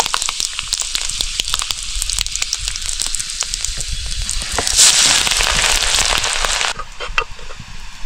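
Chopped chayote squash and potato frying in hot oil in a pan, a steady sizzle full of crackling pops. About five seconds in the sizzle surges louder, then drops back sharply a couple of seconds later.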